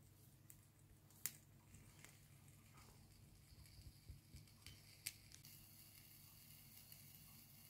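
Near silence over a soda-can burner's flame heating a tin-can steam turbine: a few faint sharp clicks, then a faint high hiss sets in about two-thirds of the way through, as steam begins to escape from the can.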